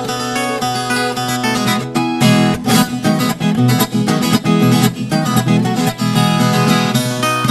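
Instrumental music on the viola caipira, the Brazilian ten-string guitar, plucked and strummed; the playing grows fuller in the low notes about two seconds in.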